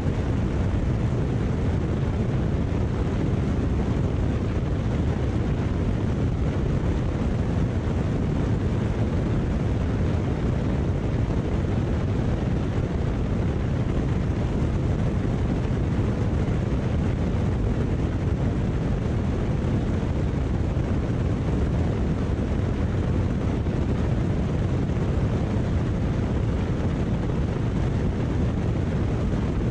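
Steady, unbroken drone of a high-wing single-engine light airplane in flight, engine and propeller mixed with rushing wind on a camera mounted outside the aircraft; the noise is heaviest and deepest in the low end.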